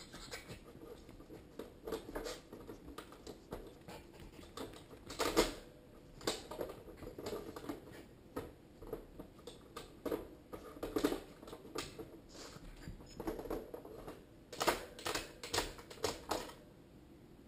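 Plastic hamster cage being nosed and pawed by a small dog: irregular clicks, taps and light rattles in scattered flurries, with a few louder knocks.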